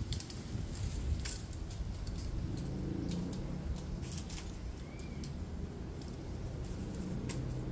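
Steady low rumble with scattered faint clicks and light metallic jingles.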